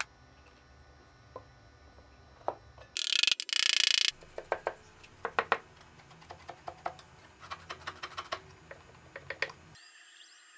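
A small hammer tapping metal pins into the wooden parts of a reed organ: a run of short, irregular, sharp taps over several seconds. A loud rapid rattling, a little over a second long, comes about three seconds in.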